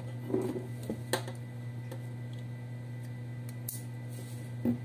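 Plastic coil-on-plug ignition coils and their wiring harness being handled on a wooden tabletop: a few light clicks and knocks, and a brief crinkle of bubble wrap near the end, over a steady low hum.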